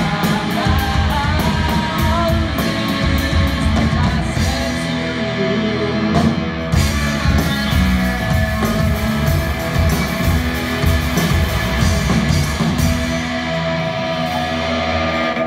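Live rock band playing loud: drum kit keeping a steady beat under electric guitar, with a lead singer.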